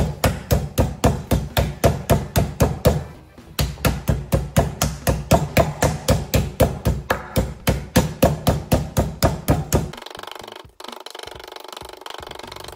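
Wooden rolling pin bashing a chicken breast through cling film on a wooden chopping board: quick, even thuds about four a second, with a short pause about three seconds in. About ten seconds in the strikes stop and the pin is rolled over the flattened, wrapped chicken, a softer steady sound.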